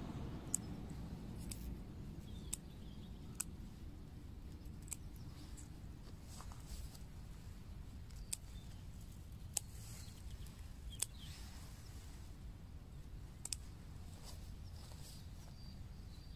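Sharp little snaps every second or so, as dandelion stems are picked off by hand, over a low steady rumble.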